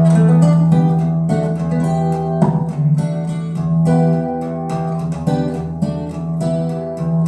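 Recorded song played through Wharfedale Diamond 220 speakers: an instrumental passage of plucked and strummed guitars over a held low bass note, with no vocals.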